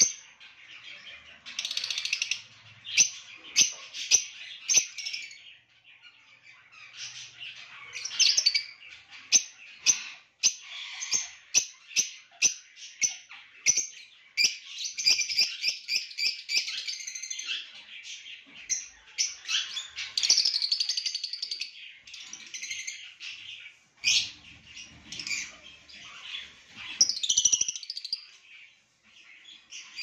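Lovebirds chirping: runs of rapid, high-pitched chirps and chatter with short breaks between them.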